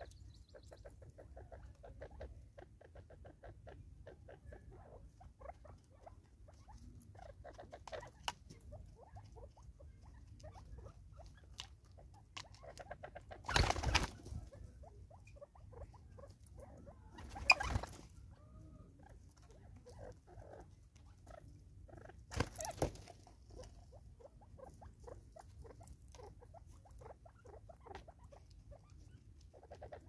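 Natal spurfowl and crested francolins pecking seed at a feeder: a quick, uneven patter of light taps. Three short, louder rushes of noise come in the middle part.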